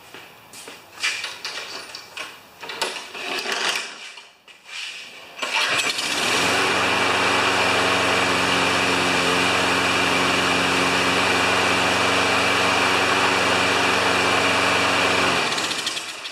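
A Brute walk-behind lawn mower's single-cylinder Briggs & Stratton engine starts about five seconds in, after some knocking and clatter, and runs steadily for about ten seconds before it is shut off and runs down near the end. It now runs on a known-good replacement spark plug; the original plug was open and gave no spark.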